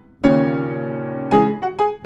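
Piano-style keyboard music: a chord struck just after the start and held, then a few quick new notes about a second and a half in.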